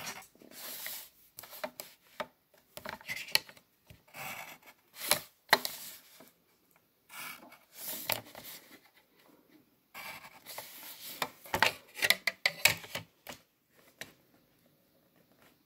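Pencil drawing lines against a plastic ruler on paper: short scratchy strokes in bursts with pauses between, and light knocks as the ruler is picked up and set down again.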